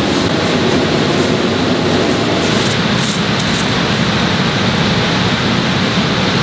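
Steady, loud rushing noise of factory machinery and ventilation, with a few faint crackles about two and a half to three and a half seconds in.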